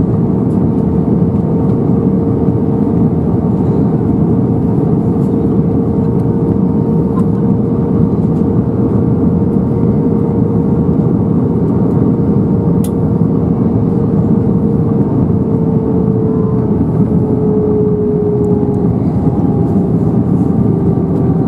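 Cabin noise of an Airbus A320-214 heard from a seat over the wing on descent: a steady rush of airflow with the hum of its CFM56 engines. A clear engine tone runs through it and sinks slightly in pitch in the last few seconds.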